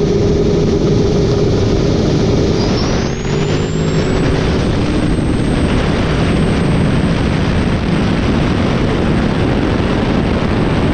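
Boosted drag-race truck engine held steady on the line, then launching about three seconds in and running wide open down the strip. Heavy wind noise comes through a camera mounted outside on the truck's front. A high whistle rises as the boost builds, then holds steady.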